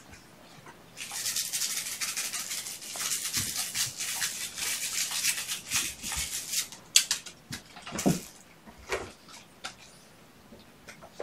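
Dry, rapid scratching for about six seconds, then a few light knocks.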